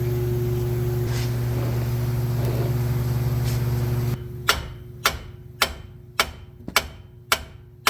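A steady low hum cuts off about four seconds in. It is followed by seven sharp hammer blows, about two a second, struck on a car's wheel hub bearing assembly to knock it out of the aluminum steering knuckle.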